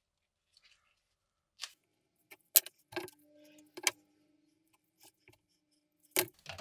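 Small objects handled on a wooden workbench: a handful of sharp clicks and knocks, the loudest about two and a half seconds in and another near the end, as a tube of glue is picked up.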